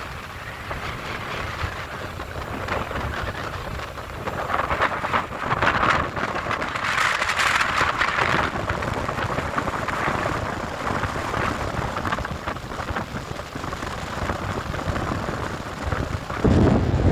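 Sea surf and strong wind: a rushing noise that swells for a few seconds and then eases. Near the end, wind buffets the microphone with a sudden low rumble.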